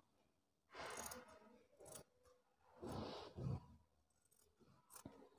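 Large scissors cutting through a folded strip of fabric: faint snips, about a second in and twice around three seconds in.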